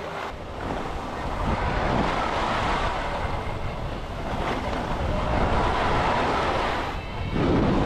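Skis sliding over groomed snow on a downhill run, a steady rushing hiss that swells and eases, with wind buffeting the microphone. Near the end the sound dips briefly, then comes back louder.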